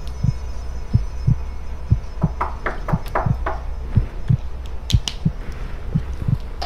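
Heartbeat sound effect: a slow double thump about once a second over a steady low drone, building suspense. A few short crackles come near the middle, and two sharp clicks come about five seconds in.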